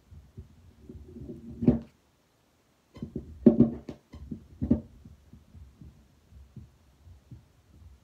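Heartbeat heard through a stethoscope chest piece as faint, regular low thumps, broken twice by loud knocking and scraping as the chest pieces are shifted on the chest: once about a second and a half in, and again in a cluster from about three and a half to five seconds in. The sound cuts out completely for about a second between the two.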